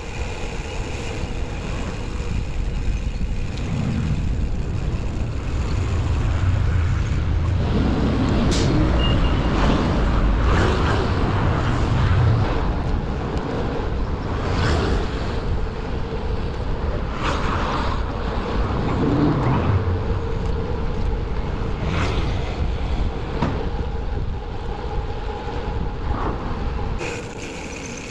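Road traffic heard from a moving bicycle: cars and trucks passing, with low wind rumble on the microphone, swelling and fading as vehicles go by.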